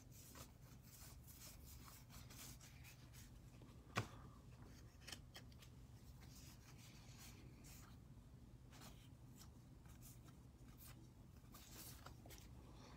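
Faint rustling and sliding of paper-stock baseball cards as a stack is flipped through by hand and squared up, with one sharp click about four seconds in.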